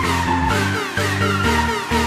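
Electronic dance music with a steady beat, a repeating bass line and a synth melody.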